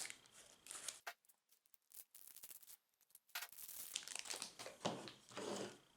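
Plastic cube packaging crinkling and rustling as it is handled, in irregular spurts, with a quieter stretch between about one and three seconds in.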